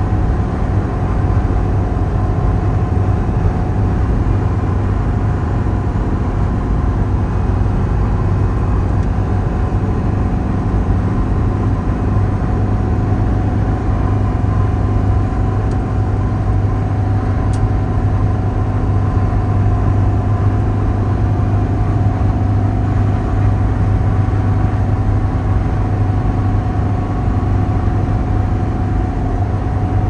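Car driving at a steady speed: an even, unbroken low drone of engine and road noise.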